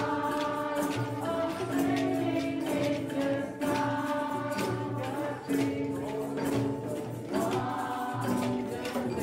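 Live song: a man sings lead to a strummed acoustic guitar while a group sings along, over a steady beat of djembe hand drums.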